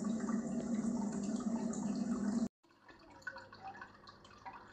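Water from a paludarium's small waterfall trickling and dripping, over a steady low hum. About two and a half seconds in the sound cuts to a much quieter stretch of scattered faint drips.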